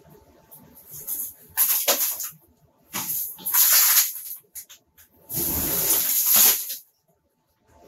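Ceiling material being torn down and crashing to the floor in three noisy bursts, the longest and heaviest a little past five seconds in.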